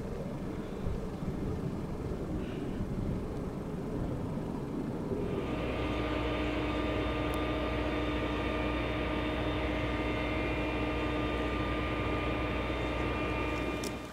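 Fire engine's diesel engine: a rumble at first, then about five seconds in a steady drone of unchanging pitch with a deep hum sets in and holds until it cuts off abruptly at the end.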